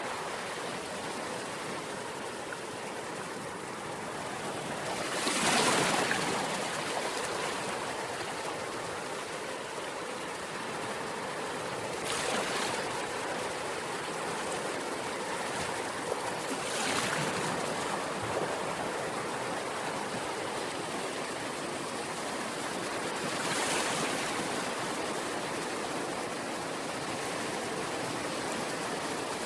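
Ocean waves on a shore: a steady rush of surf with four waves breaking louder, several seconds apart, the first the loudest.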